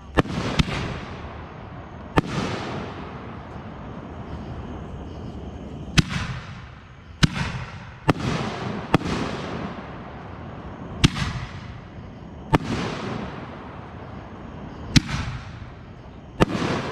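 Consumer aerial fireworks bursting overhead: about ten sharp bangs, spaced unevenly a second to four seconds apart, each trailing off in a fading hiss.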